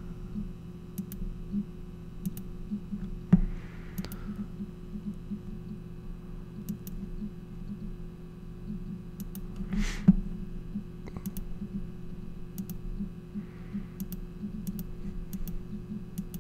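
Computer mouse clicking now and then over a steady low hum, with a sharp knock about three seconds in and a short hiss about ten seconds in.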